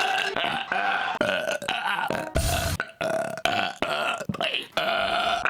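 A man's burps, one after another in quick succession: about a dozen short, pitched belches, each broken off abruptly as the next begins.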